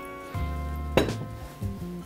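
A glass wine bottle set down on a wooden board, one sharp knock about a second in that rings briefly, over steady background music.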